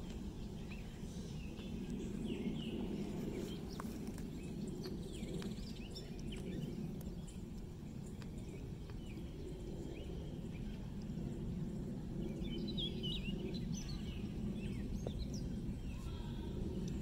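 Outdoor ambience of birds chirping and calling on and off, busiest a couple of seconds in and again near the end, over a steady low rumble.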